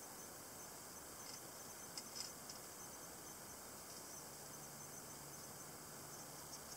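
A few faint, light clicks from a Browning spring-assisted folding knife being handled and turned over in the hands, over a steady hiss. The clicks cluster about two seconds in, with another near the end. A faint low hum comes in about four seconds in.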